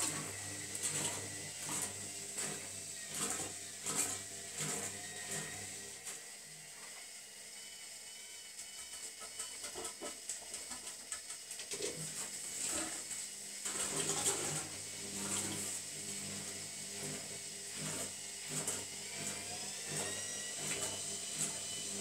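Zanussi Lindo300 front-loading washing machine on its rinse cycle: the drum motor hums as it turns the drum, with repeated knocks and clicks from the tumbling wash. The motor stops for several seconds midway, then starts again, and its whine rises in pitch near the end.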